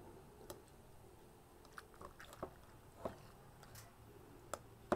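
Metal spoon digging kimchi out of a plastic jar: faint wet squishes and a scatter of small clicks of the spoon against the jar, the sharpest click near the end.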